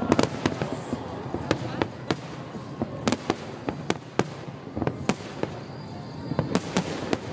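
Aerial fireworks shells bursting: an irregular run of sharp bangs and cracks, several a second at times.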